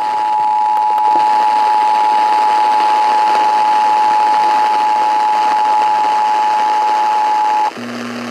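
Emergency Alert System two-tone attention signal: two close, steady tones sounding together as a loud continuous alarm over radio hiss, marking the start of a Child Abduction Emergency alert. The tones cut off near the end, leaving a low steady hum.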